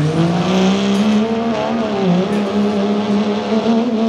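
Dodge Ram's Cummins turbo-diesel inline-six at high revs, pulling a 40,000-pound sled. Its pitch climbs during the first second, then holds steady with a brief dip about two seconds in, over the hiss of spinning tires on dirt.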